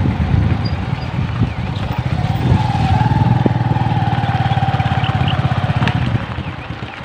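Small motorcycle engine running with a rapid, even putter while riding, louder for a few seconds in the middle and easing off near the end.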